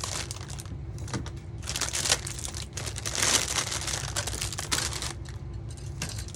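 Crinkling of the plastic bags that hold the model kit's sheets of parts as they are handled, in irregular rustles and crackles, loudest about halfway through.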